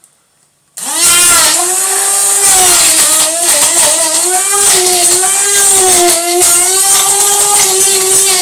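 Hand-held stick blender switching on about a second in and running loud, its motor whine wavering in pitch as the blade works through chunks of apple and banana in a plastic jug.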